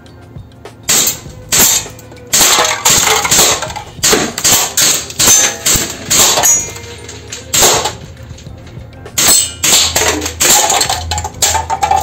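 KWC M712 Broomhandle gas airsoft pistol firing 6mm steel BBs at full beer cans. Sharp shots and metallic hits on the cans come in irregular clusters, some single and some in quick runs.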